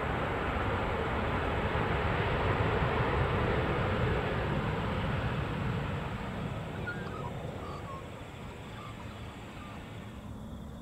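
Embraer E190's twin turbofan jet engines running as the airliner rolls out on the runway after landing, the noise easing off from about halfway through as it slows. A few faint bird chirps come in the second half.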